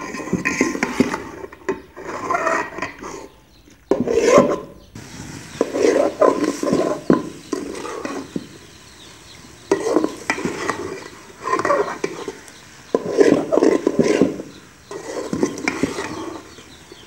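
A metal spoon stirring boiled macaroni and vegetables in a wet sauce inside an aluminium degchi. It scrapes and knocks against the pot in about eight separate bursts of stirring, each about a second long, with short pauses between them.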